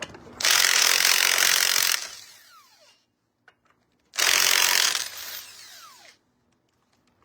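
Impact wrench run twice in short bursts, hammering lug nuts loose, each burst ending in a falling whine as the tool winds down.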